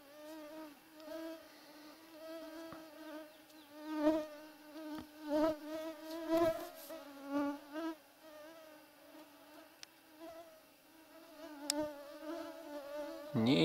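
A flying insect buzzing, a steady whine that wavers slightly in pitch, with a few low thumps around the middle.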